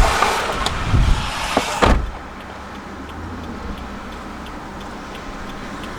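Rushing outdoor noise with a few knocks, ending in a car door thudding shut about two seconds in. After that comes a steady low hum inside the stopped car.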